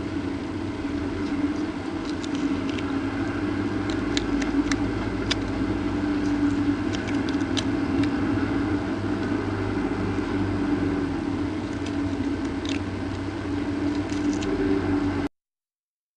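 A steady mechanical hum with one strong low tone and scattered faint clicks. The sound cuts out completely about fifteen seconds in.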